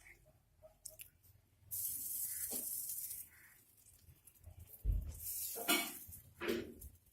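Cooking in a pan: a burst of hissing sizzle lasting about a second and a half, then a spoon knocking and scraping against the pan several times near the end.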